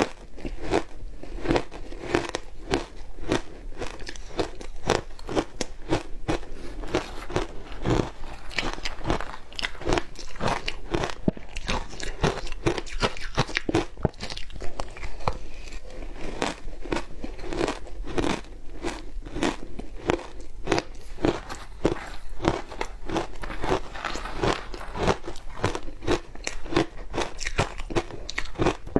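Shaved ice being bitten and chewed, a steady run of close crunches at about two or three a second.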